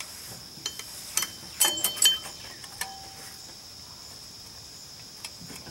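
Screwdriver and steel springs on a Ford Bronco II rear drum brake assembly clicking and clinking as the hardware is levered into place. The cluster of metallic clicks falls about a second in, some with a brief ring, and a single click comes a little later.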